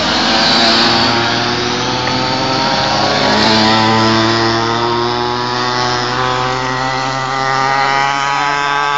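Small two-stroke pocket bike engines buzzing steadily as the minibikes ride around, the pitch shifting as they pass and change speed.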